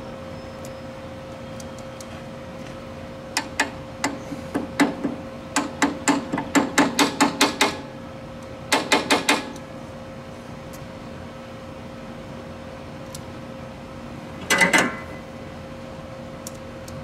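Starter solenoid on a John Deere RX95 riding mower clicking in runs of sharp clicks, some of them rapid and chattering, with no sound of the engine cranking. The owner takes it for a bad solenoid.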